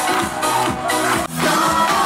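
Live electronic dance-pop music from a stage band: a steady drum-machine beat with keyboard synth lines and no singing. The music drops out for a split second just past the middle.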